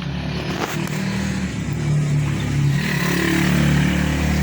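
A motor engine running steadily at a low, even pitch, growing somewhat louder about two seconds in.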